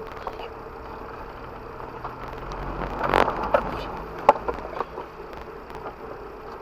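Off-road 4x4 driving over rough ground, heard from inside the vehicle: a steady engine and drivetrain noise that swells about three seconds in, with sharp knocks and clatters of the body and suspension, the loudest a little past the middle.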